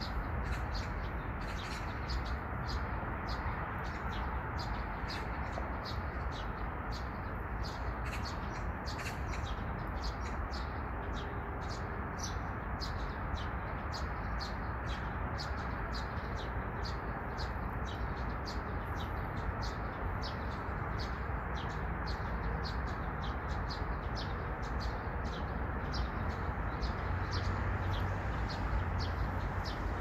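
Small birds chirping in the trees: short, high, clear notes repeated about twice a second, over steady low background noise.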